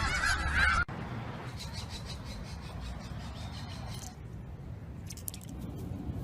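Geese honking for less than a second, then a sudden cut to a much quieter background of low rumble with a few faint clicks.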